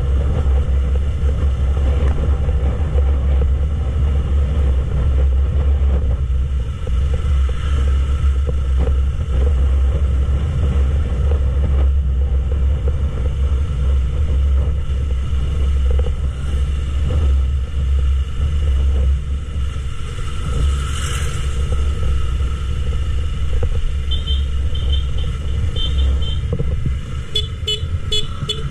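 Yamaha YZF-R3 ridden at a steady cruise: heavy wind rumble on the camera mic over the bike's parallel-twin engine. Near the end come a series of short, high horn toots.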